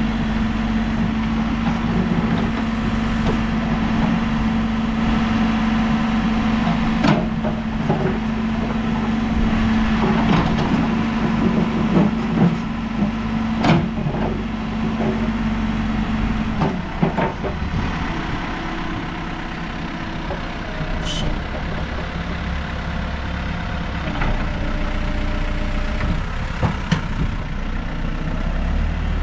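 New Holland backhoe loader's diesel engine running at a steady working speed while it digs, with scattered sharp clanks and knocks from the bucket and linkage. A bit past halfway the engine note drops as the revs fall back.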